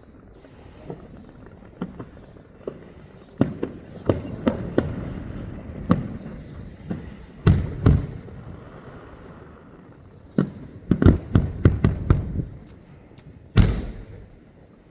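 Fireworks bursting in irregular bangs, each with a short rumbling tail. Quick runs of bangs come about four seconds in and again around eleven to twelve seconds, with one more big bang near the end.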